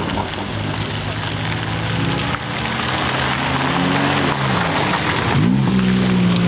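Single-turbo BMW M3 G81 Touring's straight-six engine running, its note shifting in pitch under a dense crackling hiss. About five and a half seconds in the pitch dips sharply and climbs back, then holds steady.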